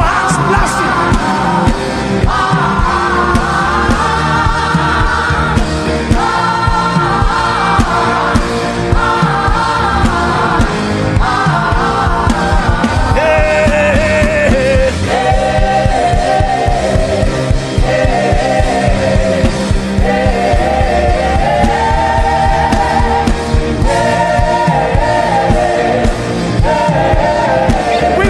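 Gospel worship music: a voice sings long, wavering held phrases over a steady, busy accompaniment with a beat.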